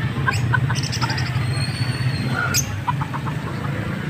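A steady low engine hum, like a vehicle idling, with scattered short chirps from small caged birds and a few light clicks.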